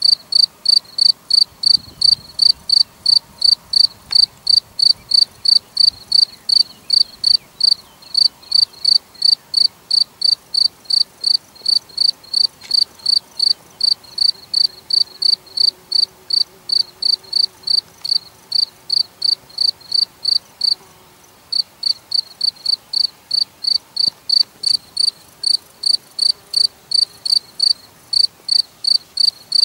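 A cricket chirping steadily, with clear high-pitched chirps coming about three a second and one brief pause about two-thirds of the way through.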